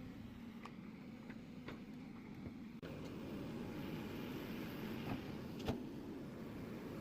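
Diesel engine of a Mahindra backhoe loader running steadily, with occasional light clanks and clicks. The sound breaks off abruptly about three seconds in and picks up again a little louder.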